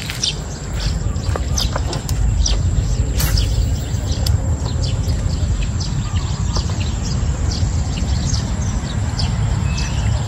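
Wind rumbling on the microphone, with birds chirping in many short, high, quick calls.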